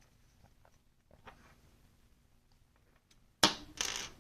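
Faint small clicks of a folding knife's parts and small tools being handled during reassembly, then two short, loud noises close together near the end.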